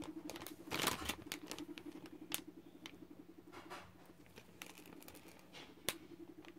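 Faint clicks and a brief crinkle of candy packaging being handled, a few scattered ticks over a steady low hum.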